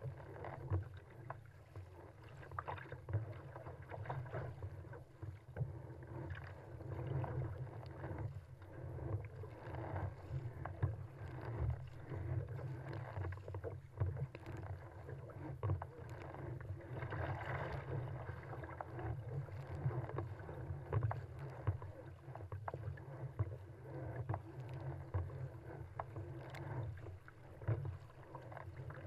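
Choppy sea water sloshing and slapping against the hull of an ocean kayak running downwind, with irregular splashes from paddle strokes over a steady low rumble. A louder wash of water comes a little past halfway.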